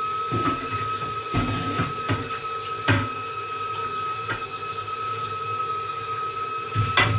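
Water running from a kitchen tap into the sink, a steady hiss with a steady high tone in it, while dishes and pans knock and clink against the sink about five times as they are washed.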